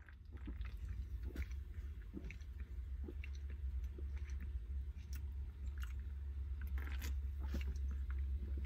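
Mouth sounds of a man tasting a sip of carbonated energy drink: swallowing and lip smacks, heard as irregular small clicks over a steady low hum.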